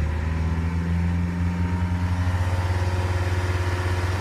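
BMW 320d E90's N47 four-cylinder diesel engine held at raised revs, above 1500 rpm, soon after a cold start. It runs steadily with a fast, uneven pulsing from under the bonnet, which the owner calls a kind of "троение", rough running like a misfiring cylinder.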